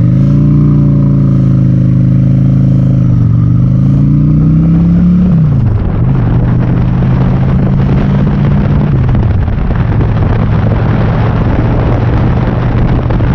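Honda Shadow V-twin motorcycle engine under way, its pitch climbing and then dropping at gear changes about three, five and a half and nine seconds in. Wind rushes over the microphone throughout.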